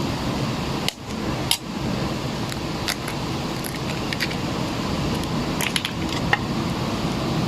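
Scattered light clicks and taps of eggs being cracked against and into a mixing bowl, over a steady background hiss.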